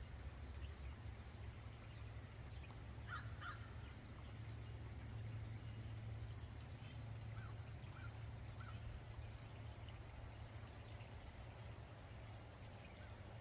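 Crows cawing faintly a few times: two short caws about three seconds in, then three softer ones a few seconds later. A few brief high chirps and a steady low rumble run underneath.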